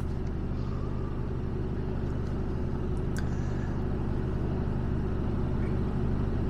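Mercedes Actros lorry's diesel engine idling steadily, heard from inside the cab.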